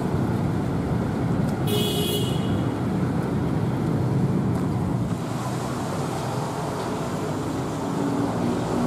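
Steady road traffic noise from a busy city street, with a brief vehicle horn toot about two seconds in.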